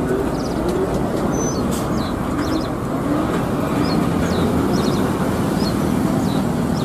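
Heavy diesel dump truck's engine running steadily as the loaded truck moves slowly past, with small birds chirping over it.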